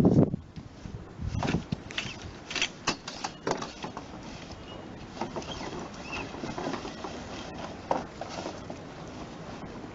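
Irregular clicks, knocks and light rattling of things being handled, with a heavier thump about a second and a half in and sparser clicks later on.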